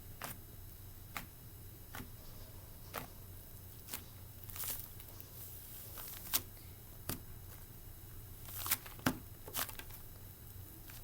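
Cloud slime being squeezed and stretched by hand, giving irregular sharp pops and crackles with short pauses between them, the loudest about six seconds in.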